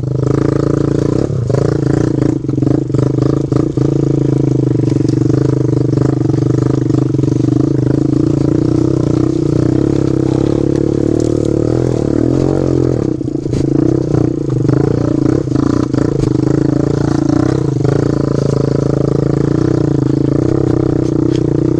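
Kawasaki KLX110 pit bike's single-cylinder engine running at a fairly steady speed while being ridden through brush. Branches and sticks knock and scrape against the bike, most near the start and again about two-thirds of the way through.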